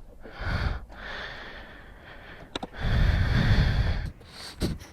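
A person breathing hard close to the microphone: a short breath about half a second in, then a longer, louder exhale about three seconds in.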